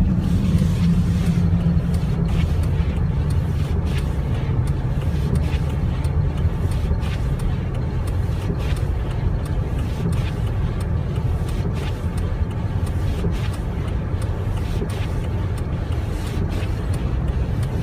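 Steady low engine and road rumble inside a moving car's cabin, with the hazard flashers ticking regularly a little under a second apart.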